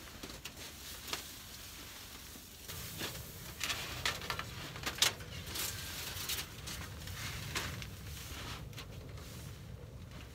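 Handling noise as a long stovepipe is fed up through a canvas lavvu tent: scattered rustles of tent fabric and light knocks and scrapes of the pipe, the sharpest about five seconds in.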